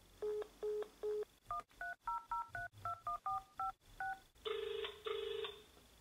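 Telephone touch-tone dialling: three short beeps, then about ten touch-tone digits keyed in quick succession. Near the end comes a double ring of the ringing tone as the call connects.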